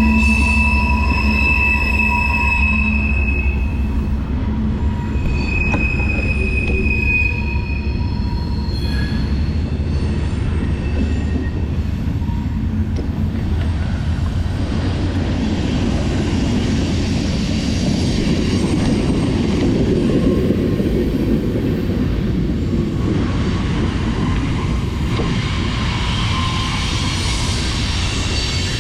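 BMX bike rolling over skate-park concrete, filmed from the rider's point of view, with heavy wind rumble on the microphone and a few sharp high-pitched squeals in the first several seconds.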